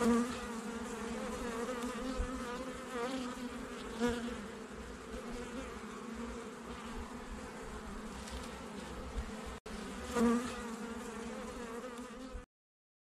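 Many honeybees buzzing together in a steady hum. The sound drops out briefly about nine and a half seconds in and stops abruptly near the end.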